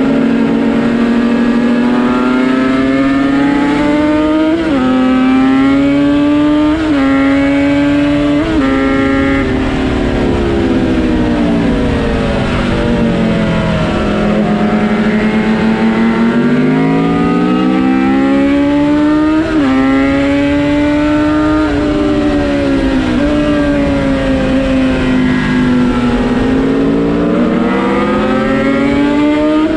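Yamaha RD350 two-stroke parallel-twin engine in a Cagiva Mito motorcycle, ridden hard on a race track. The revs climb and fall again and again as the bike speeds up and slows, with short hitches in pitch at several points and one long drop to low revs about halfway through before climbing again.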